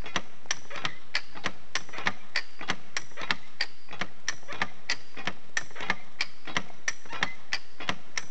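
Trewhella monkey grubber hand winch being worked by its lever: its ratchet clicks evenly, about three clicks a second, as the handle is pumped back and forth to take up the pull.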